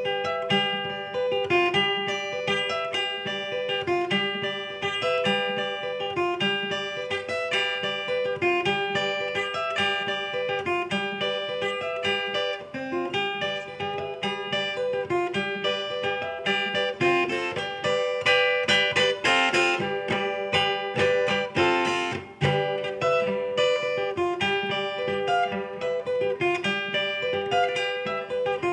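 Acoustic guitar in open D major tuning with a capo, played in A major in the style of the Northeastern Brazilian viola: a picked baião-style melody over a ringing open-string drone, with a stretch of faster strummed chords about two-thirds of the way in.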